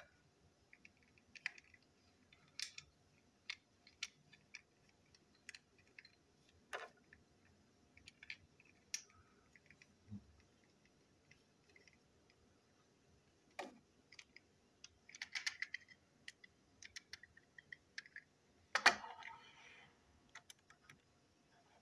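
Small plastic parts of a toy locomotive clicking and tapping as they are handled and fitted together on a tabletop, in scattered single clicks, with a denser run of clicks past the middle and the loudest clack near the end.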